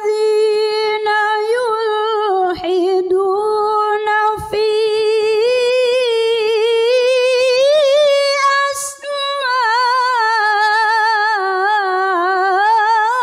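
A woman's solo Quran recitation in the melodic tilawah style, with no accompaniment. She draws out a long phrase on a high held pitch, winding in wavering ornaments, with a few short catches of breath.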